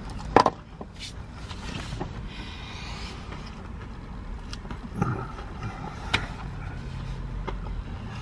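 Road traffic passing outside, heard from inside a parked van as a steady low rumble. A few short clicks and smacks come from a man chewing a large mouthful of burger, the loudest just after the start and others about five and six seconds in.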